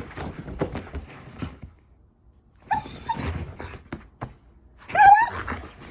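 German shepherd puppy scuffling during play, then giving short high-pitched whines, a brief pair about three seconds in and a louder one about five seconds in.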